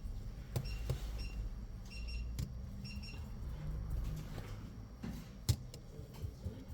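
Light clicks and taps of small repair tools working inside an opened iPhone 11, with one sharper click about five and a half seconds in, over a low steady hum.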